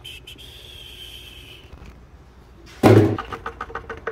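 Motor oil pouring quietly through a plastic funnel into the engine's oil filler. Nearly three seconds in there is a sudden loud thump, then a few light clatters.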